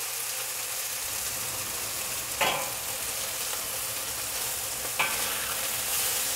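Marinated chicken pieces sizzling steadily as they sear in hot oil in a wok, with a range-hood fan humming underneath. Two brief sharper sounds break through, about two and a half and five seconds in.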